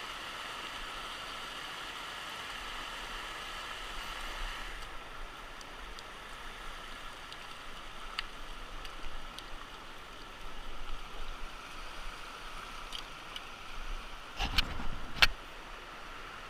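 Steady rush of a rocky mountain stream's rapids, fainter after about five seconds, with a few sharp clicks. Near the end, a brief cluster of loud knocks and rustling.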